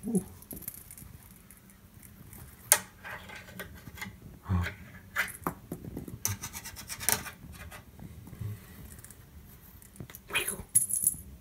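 Cat wand toy's shiny purple streamers rustling and scratching over carpet in short, irregular bursts as the toy is swished and swatted at by a cat, loudest about three seconds in and again near the end.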